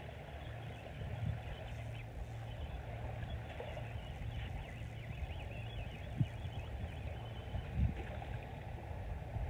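Wind rumbling on the microphone over small waves washing up on a sandy beach, with a few soft low thumps.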